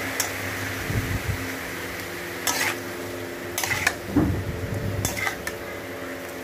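Metal spatula stirring and scraping against a metal kadai as shrimp fry in oil, over a steady sizzle; three louder scrapes come in the middle, with a couple of dull knocks of the spatula.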